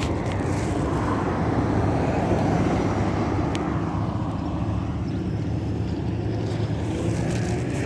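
Road traffic: car engines and tyre noise, steady and swelling slightly about two to three seconds in as a vehicle passes.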